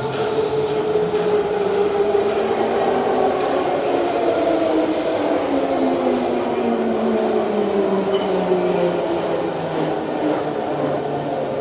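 Type 81-717.3/714.3 metro train pulling into the platform and slowing, with rail rumble and a drive whine that falls steadily in pitch as it decelerates.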